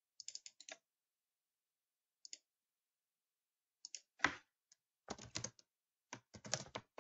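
Faint clicking of computer keyboard keys and a mouse, in short scattered bursts: a quick run of clicks at the start, a few single clicks, and more clusters near the end.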